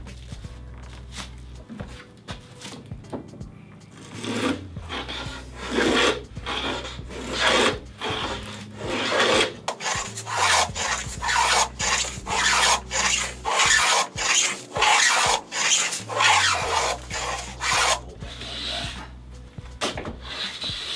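Stanley 45 combination plane cutting a moulding profile along a wooden board in repeated scraping strokes, about one a second. The strokes start a few seconds in and stop near the end.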